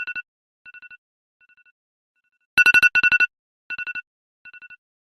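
Countdown timer's finishing alarm: rapid electronic beeps in quick clusters, with two loud clusters a little past halfway. Each burst is followed by quieter repeats that fade away like echoes, and the pattern repeats every four seconds or so.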